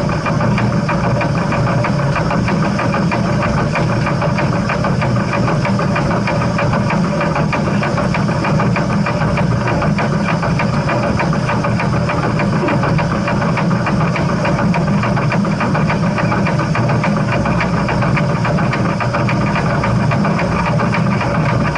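Heritage steam train running, a steady mechanical rumble with a rapid, even clatter that does not change.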